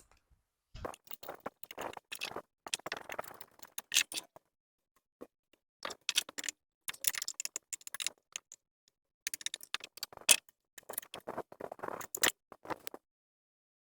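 Quick, scattered clicks and rattles of parts being handled while ceiling-fan blades are fitted, in sped-up footage. They stop about a second before the end.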